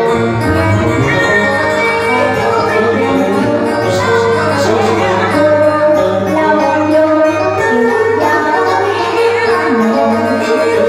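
Woman singing a Vietnamese duet song into a microphone over live electronic keyboard accompaniment.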